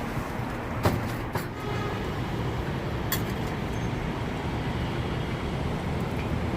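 Steady low rumble of street noise, with a few sharp clicks, the loudest about a second in.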